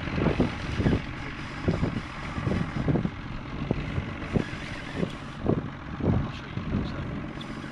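Wind buffeting the microphone: irregular low thumps over a steady rushing noise.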